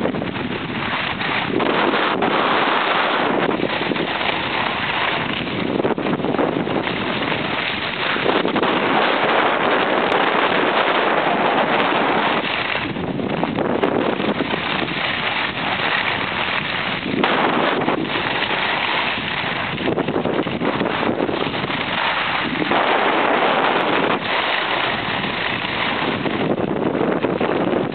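Wind rushing over the microphone of a skier moving fast downhill, mixed with the hiss of skis on packed snow, swelling and easing every few seconds through the turns.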